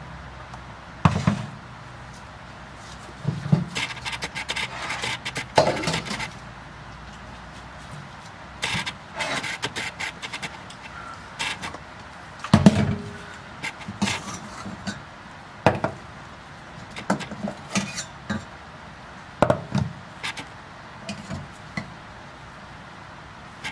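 Kitchen clatter: irregular knocks, taps and scrapes of pots, lids and utensils being handled, the loudest knock about halfway through.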